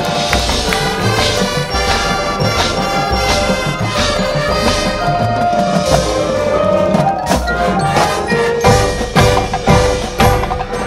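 Marching band playing: held pitched notes over drums and mallet percussion, with sharp, evenly spaced drum hits in the last few seconds.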